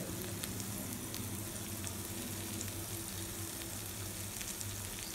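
Vegetable kuzhi paniyaram frying in oil in a nonstick paniyaram pan over a low gas flame: a steady, soft sizzle.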